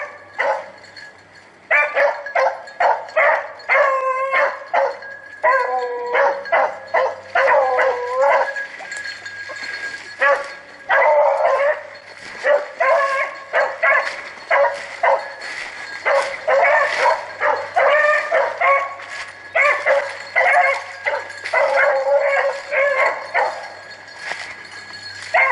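Rabbit-hunting hounds baying in a quick, nearly unbroken run of short bending calls from about two seconds in. This is the cry of the pack running a swamp rabbit's scent trail.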